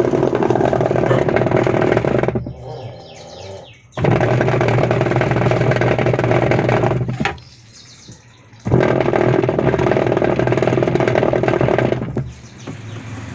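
Kelvinator top-loading washing machine agitating with its pulsator, making a loud mechanical noise in three runs of a few seconds each, with short pauses as the drive stops and reverses. The noise is the sign of a failed gearbox.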